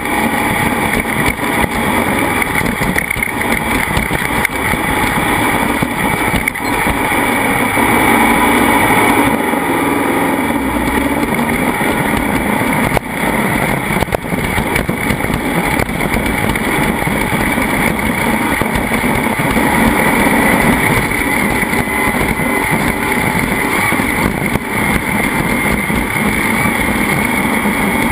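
Racing vehicle's engine running loud and steady at speed.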